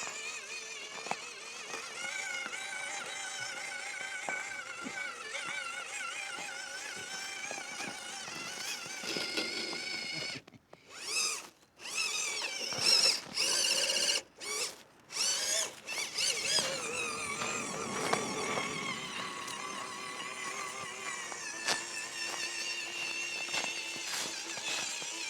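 Small electric motor and gearbox of a WPL C84 RC crawler whining, its pitch rising and falling with the throttle, cut off abruptly a few times in the middle.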